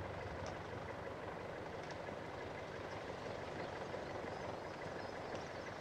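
Steady, faint engine noise of distant heavy vehicles, an even hum with no separate events.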